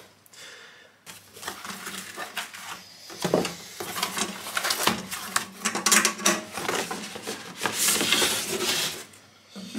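Cardboard box being handled: the flaps are opened and the box is pulled up off the metal ammo can inside, with irregular rustling, scraping and light knocks.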